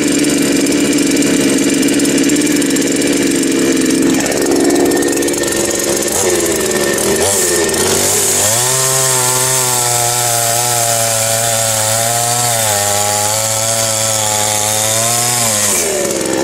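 Homdox two-stroke gas chainsaw running on its first start-up. The engine note shifts about four and again about seven seconds in, then settles into a steady, slightly wavering tone.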